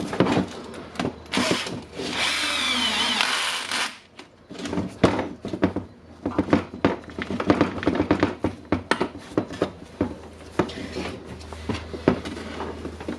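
A power screwdriver or drill driving screws, likely closing the hammer drill's housing. Its motor runs in a short burst, then for about two seconds with a whine that shifts in pitch. Knocks and clicks of parts being handled follow.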